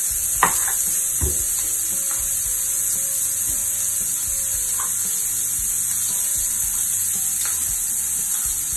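Mushrooms and onions sizzling steadily in bacon fat in a skillet, with a few short knocks of a knife slicing a tomato on a plastic cutting board.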